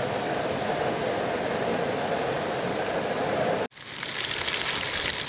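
Gas camping stove burner running with a steady hiss under a pot. Nearly four seconds in, the sound switches abruptly to chicken karaage deep-frying in oil in an aluminium pot, a hissing sizzle.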